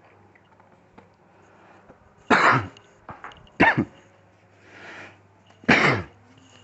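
A person coughing three times in short, loud coughs, a second or more apart, over a faint steady low hum.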